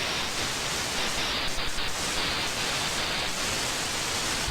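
Steady static hiss from an RTL-SDR receiver running SDR#, tuned on the shortwave bands, with a few brief dips near the middle.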